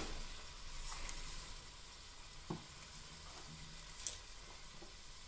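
Pigeon peas, dried shrimp and ground spices frying in oil in a pot, a steady soft sizzle that eases a little after the first second or two, with a few faint clicks.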